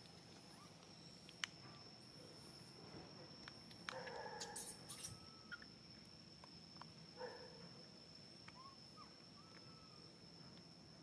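Faint animal chirps: a few short, high squeaks come and go over a steady thin high-pitched whine, with brief rustles about four and seven seconds in.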